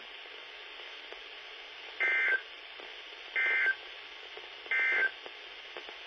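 NOAA Weather Radio SAME end-of-message data bursts through the weather radio's speaker: three short two-tone digital squawks, about 1.3 s apart, over a steady hiss. They signal the end of the severe thunderstorm warning message.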